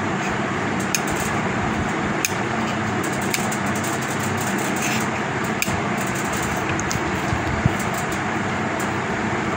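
A few sharp clicks of a spring-loaded desoldering pump sucking melted solder off the flyback transformer's pins on a CRT TV board. Under them runs a steady background hum and hiss.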